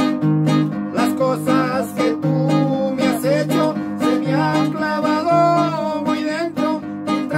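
Two acoustic guitars strummed in a steady rhythm, with a bass note about once a second and a man's voice singing over them from about a second in.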